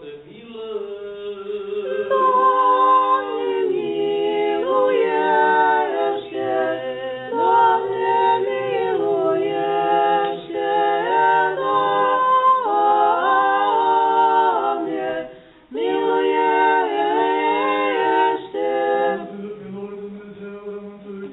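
An unaccompanied choir singing an Orthodox church hymn, several voices moving together, with a brief break about three quarters of the way through. Near the end the singing gives way to a single low, steady chanting voice.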